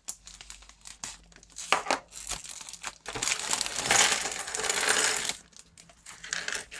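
Thin plastic bag crinkling and tearing as it is opened, then a dense rattle of small plastic LEGO pieces tumbling out of the bag and clattering onto a wooden table for about two seconds, followed by a few scattered clicks.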